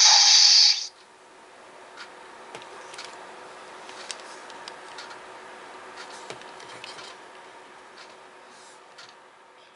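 Phaser sound effect from the GMProps Boomerang Phaser electronics board, a loud, noisy blast that cuts off suddenly about a second in. After it come faint clicks and rubbing as the board is handled.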